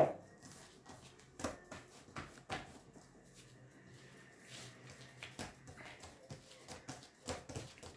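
Hands handling a bowl of risen bread dough: scattered soft knocks and rustles, with one sharp knock at the very start.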